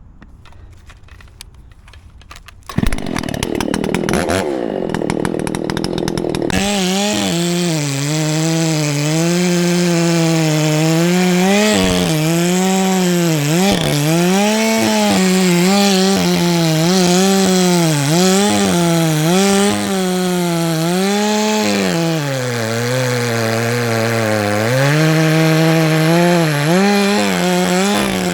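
Chainsaw comes on about three seconds in, then runs at high speed cutting through a felled pine's trunk, its pitch sagging and recovering again and again as the chain bites into the wood.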